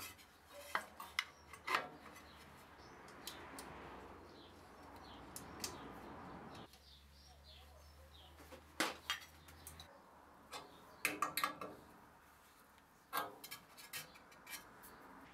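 Irregular clicks and light taps of a clear acrylic blade guard being handled and fitted against a bandsaw's metal upper-guide bracket, with a screw being set through it.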